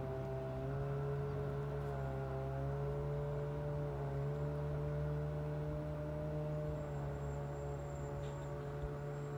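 A motor running steadily: a low hum with a few higher tones that waver slightly in pitch.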